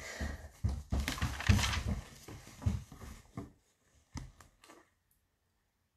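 Rustling and bumping noise of someone moving close to the microphone, loudest between one and two seconds in, followed by a few light clicks before it goes quiet.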